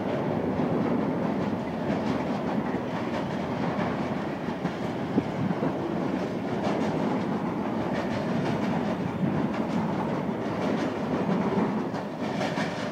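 Intermodal freight train's container wagons rolling past, a steady rumble of wheels with repeated clacks over the rail joints. The sound falls away near the end as the last wagons go by.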